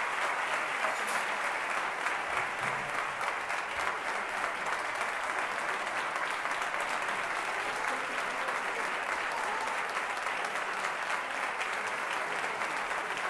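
Audience applauding a band after its performance: dense, steady clapping.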